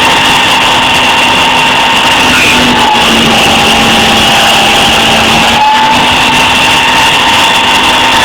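Mini CNC mill running: a loud, steady mechanical whine of several held tones over a hiss, shifting slightly in pitch about two and a half seconds in and again near six seconds.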